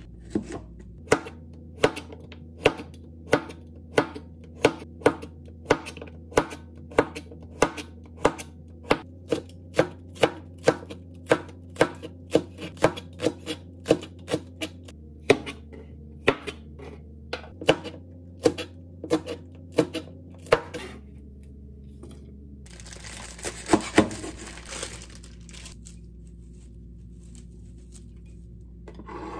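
Chef's knife chopping zucchini and then green onion on a plastic cutting board: even strokes about two a second for some twenty seconds, each ending in a knock on the board. After a short pause comes a few seconds of plastic crinkling and rustling as the wrapper of a bunch of enoki mushrooms is pulled off.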